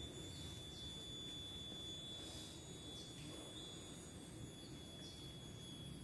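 Quiet tropical forest ambience: a faint, steady, high-pitched insect drone, with a few faint short chirps now and then.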